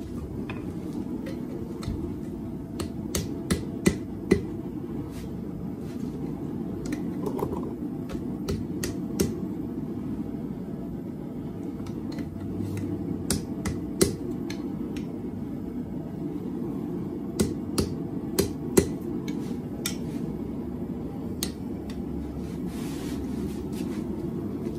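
Hand hammer striking a half-inch round steel bar on an anvil to bend it to a right angle: irregular blows, some in quick runs of two to four, with a few sharp metallic rings. A steady low rumble runs underneath.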